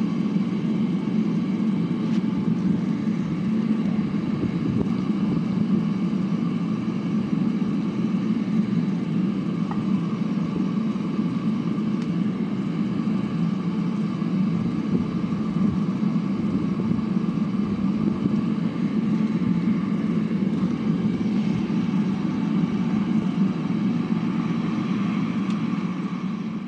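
Propane burner on a metal-melting furnace running steadily with a constant, low rush of flame and air. The burner is set to run rich.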